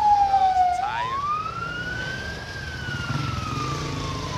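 A siren wailing: its pitch slides down, rises slowly to a peak about two and a half seconds in, then falls again, over the low rumble of street traffic.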